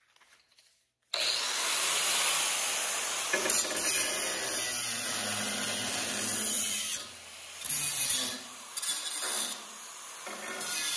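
Angle grinder starting up about a second in and grinding into rectangular steel tubing with a steady, loud grinding noise. The noise drops briefly a few times in the second half, then picks up again.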